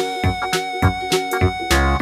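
Background music with a steady beat and a held keyboard-like tone.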